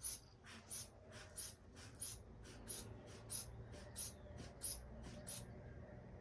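Rubber hand bulb of a manual blood-pressure cuff being squeezed to pump up the cuff: nine short, airy hisses about two-thirds of a second apart, each followed by a fainter hiss as the bulb refills, stopping about five seconds in.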